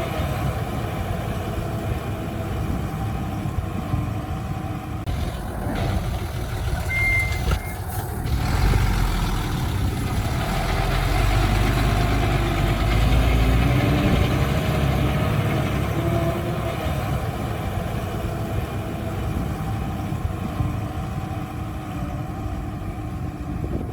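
Diesel engine of heavy earthmoving machinery running steadily under load, rising heavier and louder for a few seconds about midway. One short high beep sounds about a third of the way in.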